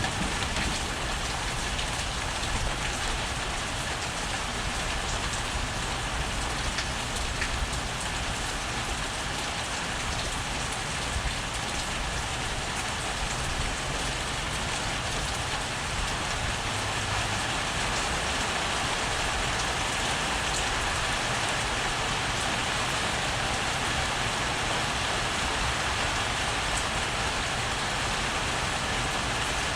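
Heavy rain falling steadily, a dense even hiss of rain on surfaces that grows a little louder about halfway through.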